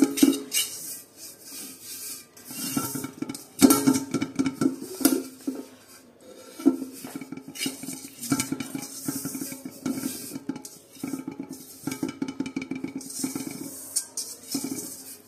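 Bare hand rubbing ghee around the inside of a metal cooking pot, skin scraping on greased metal in quick repeated strokes with brief pauses, greasing the pot so the rice will not stick.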